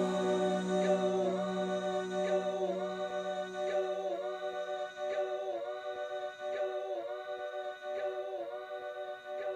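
Music: a sustained, layered vocal-like chord that dips briefly in pitch about every three-quarters of a second, slowly fading. A low held note underneath drops out about halfway through.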